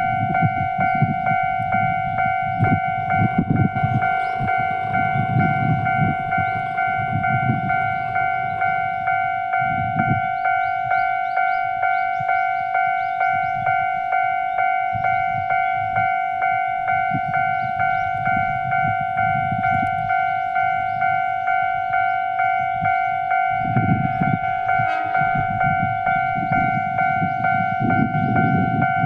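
Japanese railway crossing alarm, an electronic Mei-Elec crossing bell, dinging in a steady, even rhythm. Under it a train rumbles over the crossing, louder at times.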